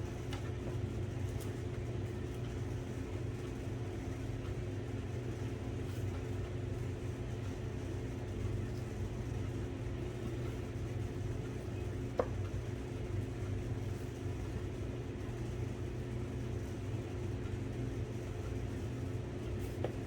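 Steady low machine hum from a motor running in the room, with a few sparse light clicks as small typewriter parts are handled during disassembly.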